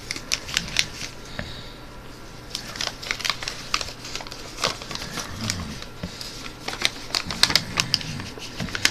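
A sheet of paper being folded and creased by hand: irregular crisp crackles, rustles and sharp taps.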